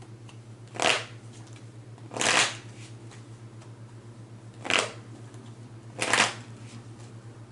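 Tarot cards being shuffled in four short bursts, each a quick rush of card-on-card riffling, over a steady low electrical hum.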